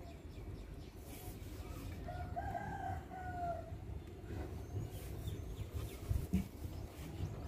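A single drawn-out bird call lasting about a second and a half, wavering slightly in pitch, over low rumbling background noise.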